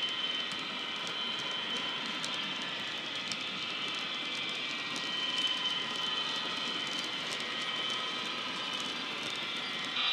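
Diesel engine sound, with the model's constant cooling-fan sound, played by the ESU LokSound decoder of a Sudexpress Euro Dual model locomotive through a small 22x13x6mm speaker. It runs steadily with a thin whine, mixed with the model wagons' wheels rolling over the track with faint clicks.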